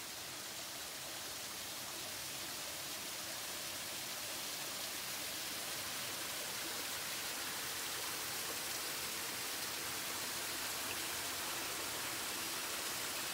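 Small, shallow forest creek running: a steady, even rush of water that grows a little louder over the first few seconds.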